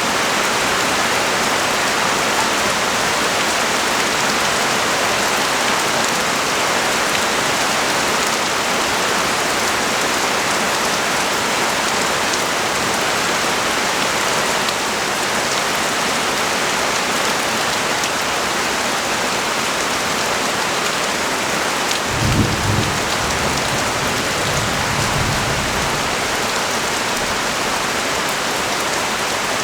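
Rain falling steadily, an even wash of drops hitting surfaces, with a brief low rumble about three quarters of the way through.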